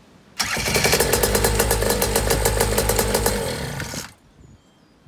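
Two-stroke paramotor engine started on its electric starter and running cold, lumpy and four-stroking with an irregular beat, because the carburettor and engine are still cold. It catches almost at once and runs for about three and a half seconds, then stops abruptly.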